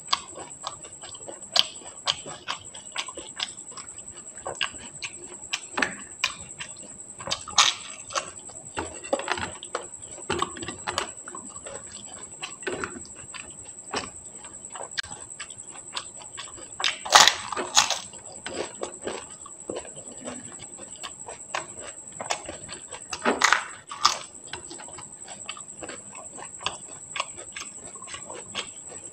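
Close-miked eating of crisp fried pani puri shells: repeated crunching, chewing and wet mouth sounds, with louder crunches about 17 and 23 seconds in.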